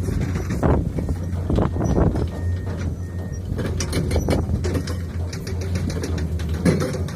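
Excavator digging rock: its diesel engine runs steadily while irregular clunks and scrapes of bucket and rock come every second or so.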